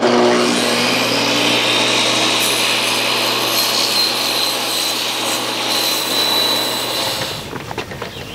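Portable jobsite table saw cutting a long wooden board as it is fed through, the motor's steady hum and whine under the blade's continuous sawing noise. The sound dies away about seven seconds in.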